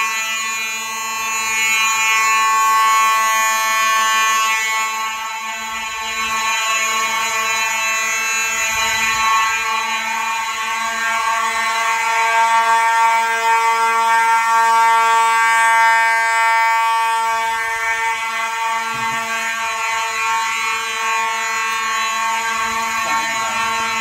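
A set of fire alarm horns, including Simplex 2901-series horns, sounding together on continuous signal during a fire alarm system test. It is a steady, buzzing blare made of many tones at once, with no pauses.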